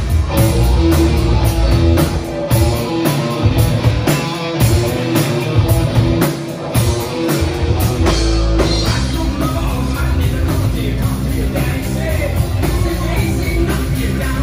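Live rock band playing loud: drum kit, electric guitars and bass working through a riff-driven rock song. The first half is stop-start, with hard drum hits between the riffs; about halfway through, the band settles into a fuller, continuous groove.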